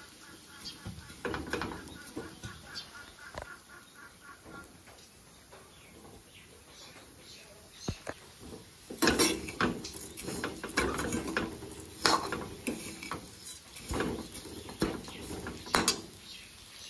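Metal spoon stirring and scraping dry-roasting rice in a metal wok, with irregular scrapes and clicks of the grains rattling against the pan. The scraping is sparse at first and busiest in the second half.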